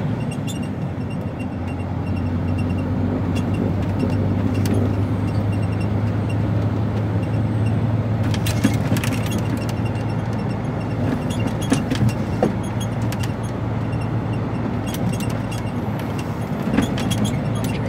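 Steady drone of an HGV's diesel engine and road noise, heard inside the cab while the lorry cruises, with a few short clicks or rattles.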